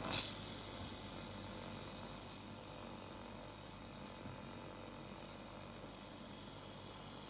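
Handheld fiber laser welder firing on 4 mm steel: a sharp burst of hiss as it starts, settling into a steady hiss, with a short click about six seconds in.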